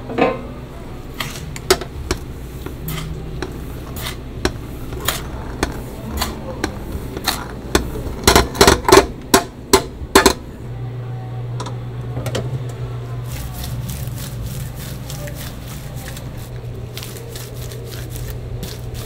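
Sharp knocks and clacks of a chimney-cake spit, a wooden roller on a metal rod, against a stainless-steel tray as the dough is rolled in sugar, with a quick run of loud knocks about eight to ten seconds in. A steady low hum comes in just after and runs under the rest.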